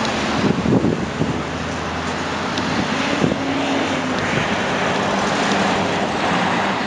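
Fire truck engine running amid street traffic, a steady noise with a low hum, and wind buffeting the microphone a few times near the start.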